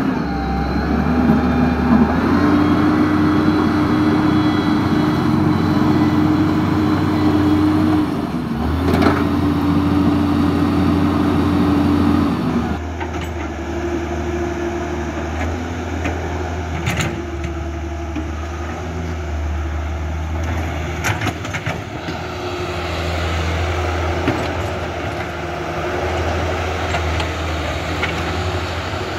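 Construction-machine engine sound running steadily with a low drone, and a higher motor whine that holds and shifts pitch in steps during the first half. About halfway through the whine stops and the running turns rougher, with a few sharp clicks.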